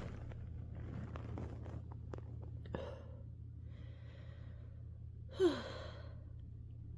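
A person breathing in and out softly, then about five and a half seconds in a single short, small sneeze with a quick falling voice sound.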